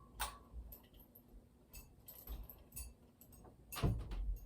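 Harbor Breeze Barnstaple Bay ceiling fan running on its low speed, with irregular light clicks and a low rumble, and a thump near the end.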